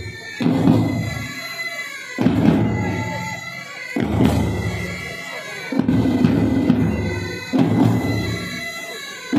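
Pipe band playing: bagpipes with their steady drones and chanter melody, over side drums and a bass drum. A heavy low accent comes round about every two seconds.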